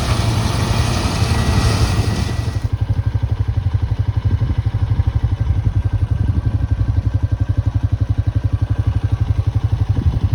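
Four-wheeler (ATV) engine running, with a rushing hiss over it for the first few seconds. The hiss then drops away, leaving the engine's even, rapid putter.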